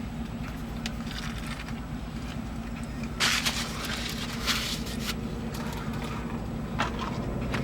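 Paper food wrapper or bag rustling and crinkling for about two seconds, starting about three seconds in, over a steady low hum.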